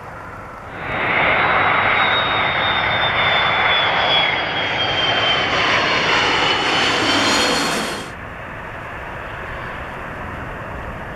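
Airbus A330 jet airliner passing low overhead on final approach, its engines giving a loud rush with a high whine that slowly falls in pitch. About eight seconds in the loud noise cuts off abruptly and gives way to a quieter, steady jet noise as the airliner touches down on the runway.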